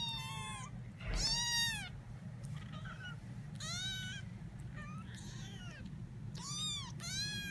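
18-day-old kittens mewing: about five loud, high-pitched cries, each arching up and falling in pitch, with fainter mews between.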